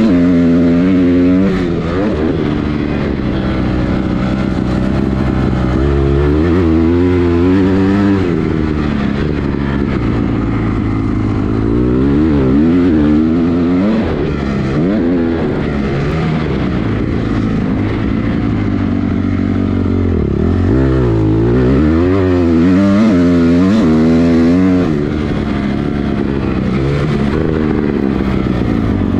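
2007 Honda CRF250R's four-stroke single-cylinder engine being ridden hard. Its pitch climbs and falls again and again as the throttle is opened and rolled off.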